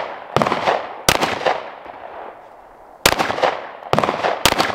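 A Glock 19X 9mm pistol with a GFLEX binary trigger firing five shots at uneven spacing, each ringing out with an echo. The binary trigger fires once on the pull and again on the release, with no pause between them.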